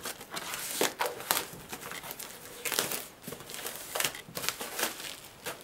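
Plastic wrapping crinkling and tearing as it is pulled off a cardboard blind box, in a string of irregular crackles and rustles.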